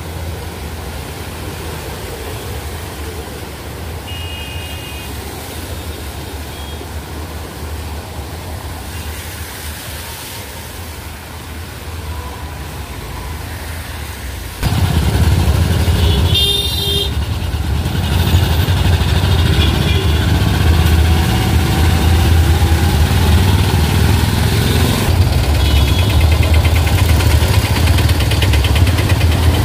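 Road traffic with short car horn toots a few times, the loudest just past halfway. About halfway through the sound jumps suddenly louder, with a heavy low rumble.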